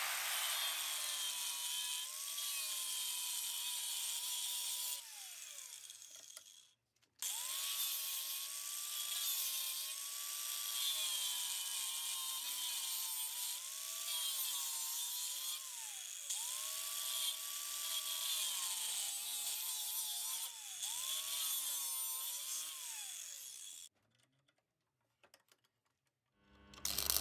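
Power tool running in several stretches, its motor tone sagging and recovering under load over a strong hiss, and winding down each time it is released. It stops briefly about seven seconds in and again near the end.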